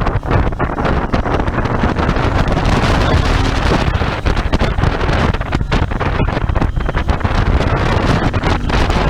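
Royal Enfield Interceptor 650's parallel-twin engine running at riding speed, heavily buffeted by wind noise on the microphone.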